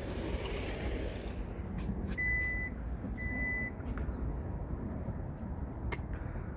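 Two short electronic warning beeps, each about half a second long and about a second apart, from the power tailgate of a Genesis G70 Shooting Brake, with a few sharp clicks and a steady low rumble underneath.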